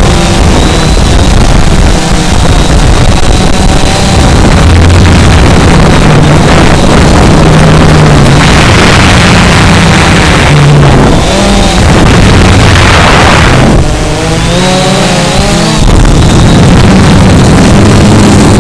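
Quanum Nova Pro (Cheerson CX-20) quadcopter's brushless motors and propellers running loud and close, the pitch shifting up and down with the throttle, with a faint high whine above it. Twice about halfway through, wind rushes over the microphone.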